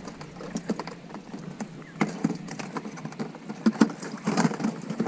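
Thin plastic drink bottle crackling and clicking as gloved hands push gooseneck barnacles in through its neck: a run of short, irregular clicks.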